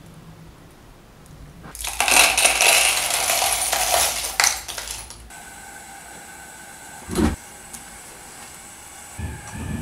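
Small pieces of bronze scrap clinking and rattling together in a plastic cup for about three seconds. After that comes a quieter steady hum with one dull thud.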